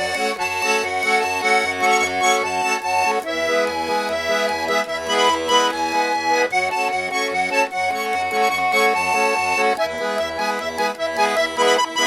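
Instrumental solo on a garmon (Russian button accordion): a melody of held and ornamented notes over an even, pulsing bass-and-chord accompaniment, the harmony changing about every three seconds.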